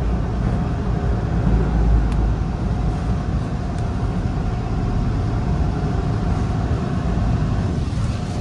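Bombardier T1 subway train running along the station platform as it slows to stop, heard from inside the front car: a steady low rumble of wheels and motors with a steady whine over it, easing slightly near the end.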